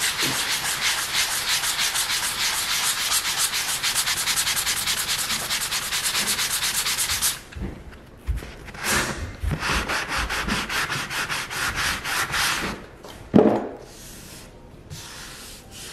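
Sanding sponge rubbed by hand over dried wood filler on a trim seam, smoothing it flush. Quick, even back-and-forth strokes for about seven seconds, then shorter, scattered strokes with brief pauses.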